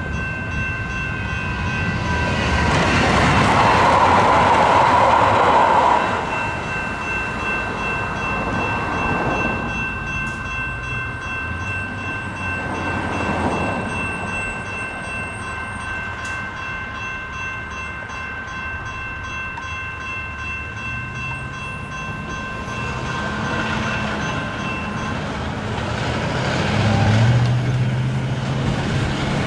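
Railroad crossing signal's electronic bells (GS Type 2 E-Bells) ringing steadily as the gates rise, stopping about 25 seconds in. A louder rush of noise for a few seconds near the start. Near the end, a semi truck's diesel engine accelerates through the gears as it pulls over the crossing.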